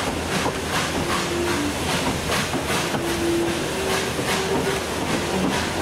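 Steam locomotive working with a train, its exhaust beats coming evenly at about two and a half a second over steady hiss and rumble.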